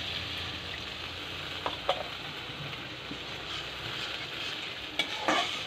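Turmeric, chilli and cumin spice paste sizzling steadily in hot oil in a steel kadai as a little water is poured in, with a few light clicks of a metal spatula about two seconds in and again near the end.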